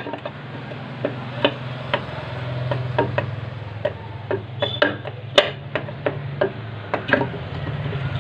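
Sharp metal clicks and taps at irregular intervals, with the sharpest about five seconds in, as the clutch cover is fitted onto a Hero Xtreme motorcycle engine. A steady low hum runs underneath.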